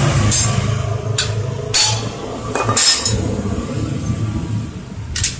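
Metal tools clinking and knocking on engine parts, five sharp strikes spread irregularly, over a steady low hum.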